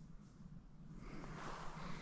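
Soft, irregular rustling and crunching in dry leaf litter, starting about a second in and growing louder.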